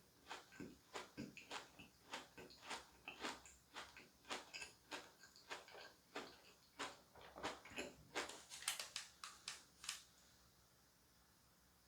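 Close-miked chewing of cake, a quick irregular run of soft, moist mouth clicks, two to four a second, that stops about ten seconds in.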